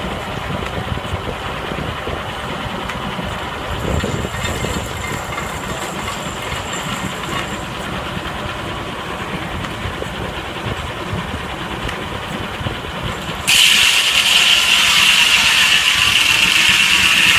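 Steam engine driving a sawmill, running with a steady mechanical clatter. About thirteen seconds in, a loud hiss starts abruptly and carries on.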